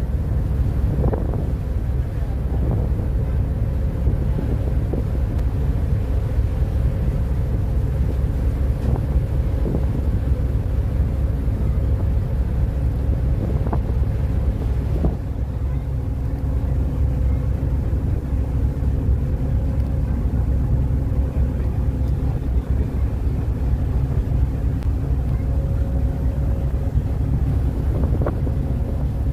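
Harbour ferry under way: a steady low engine rumble with a faint hum above it, and wind buffeting the microphone.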